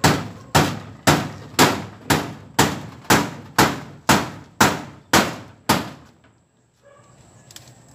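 Hammer driving nails to fix a wooden brace against a corrugated iron fence: a dozen sharp, evenly paced blows, about two a second, stopping about six seconds in.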